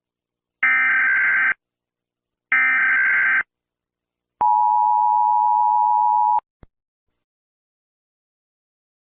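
Emergency Alert System alert: two bursts of the digital SAME header data tones, about a second each, then the steady two-tone attention signal for about two seconds, cut off suddenly.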